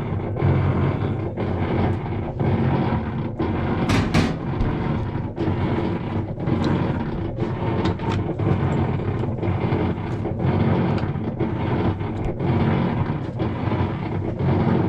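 Whirlpool top-load washing machine running with a loud mechanical grinding noise that pulses about twice a second. The owner likens it to a gear dragging inside, the fault that keeps it from washing properly.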